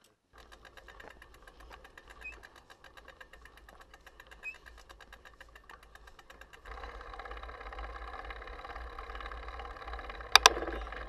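Mountain bike riding along a dirt fire road, heard from a camera on the rider or bike: a rapid, even ticking and rattle that gets louder about seven seconds in, with two sharp knocks near the end.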